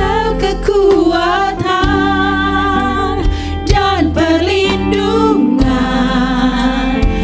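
Three women singing a gospel worship song together into microphones, voices with vibrato, over held instrumental chords.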